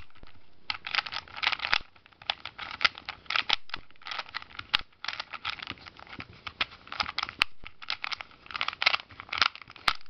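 A 3x3 Rubik's Cube being scrambled by hand: rapid plastic clicking and rattling as its layers are turned, in quick runs of turns with short pauses between them.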